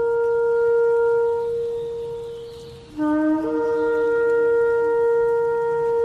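Shofar (ram's horn) sounding two long held blasts on one pitch: the first fades out about halfway through, and the second starts on a lower note, jumps up to the main pitch after a moment and holds.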